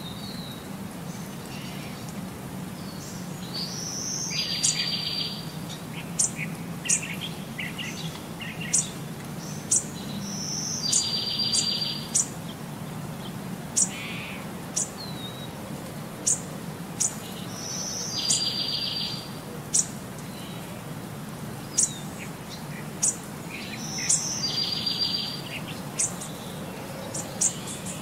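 Birds singing: a phrase ending in a buzzy trill comes back about every six to seven seconds, with short sharp chirps in between, over a steady low hum.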